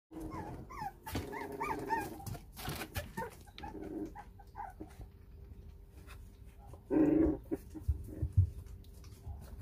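Four-week-old puppies whining and yelping as they play-fight, with short high wavering cries in the first couple of seconds and a louder, lower cry about seven seconds in. A few soft bumps follow.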